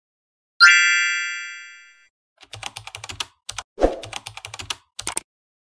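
Intro-animation sound effects: a bright chime about half a second in that rings and fades over about a second and a half, then a run of quick keyboard-typing clicks with a dull thunk among them.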